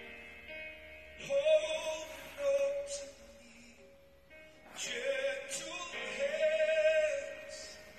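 A woman singing two long phrases without clear words, the held notes wavering with a wide vibrato; the second phrase starts about halfway through.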